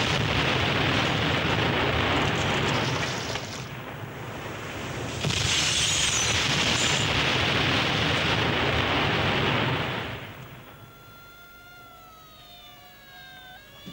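A loud, steady roar that dips about four seconds in, surges again, then dies away about ten seconds in, leaving several whining tones that slowly fall in pitch.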